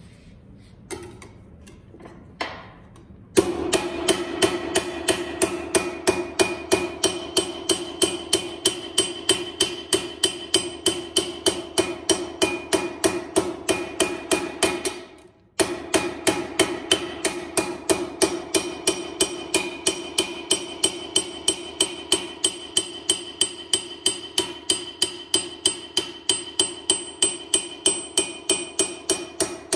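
Planishing hammer striking a sheet-metal mug cylinder held over a steel blowhorn stake, evening out the seam and the whole cylinder. The blows come steadily, about three a second, each ringing with a metallic tone. The hammering starts a few seconds in and stops briefly a little past halfway before carrying on.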